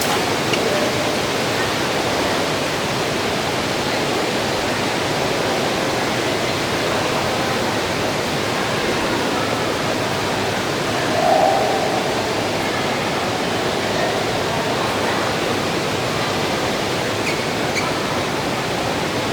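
Steady hiss of heavy rain falling, unchanging throughout, with a brief faint tone about eleven seconds in.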